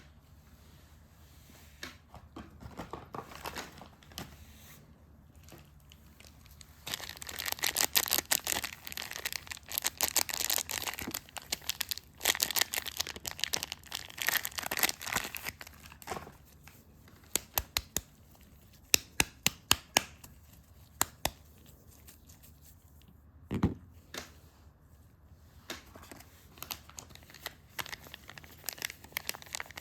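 Soap wrapping crinkling and tearing as soap is unwrapped close up, in dense spells, then a string of sharp taps and a single low knock.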